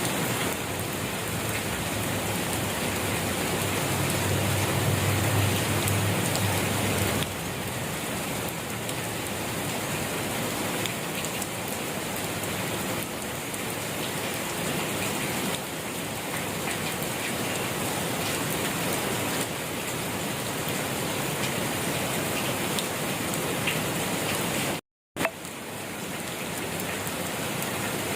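Steady rain falling and pattering on surfaces, with a low rumble under it for the first seven seconds or so that ends abruptly. The rain cuts out completely for a split second about 25 seconds in, then resumes with a brief pop.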